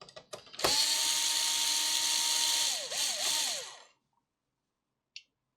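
A small electric repair-bench tool motor starts after a few light clicks and runs with a steady high whine and hiss. Near the end it dips in pitch twice as if loaded, then winds down and stops.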